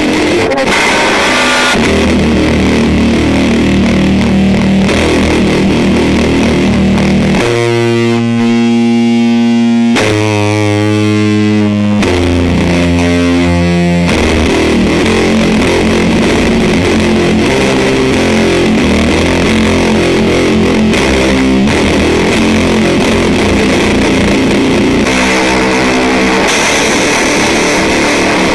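Electric guitar played through an EarthQuaker Devices Fuzz Master General fuzz pedal into a miked Fender Deluxe Reverb amp: distorted, sustained chords and notes. One note rings out, held for about two seconds, near a third of the way in.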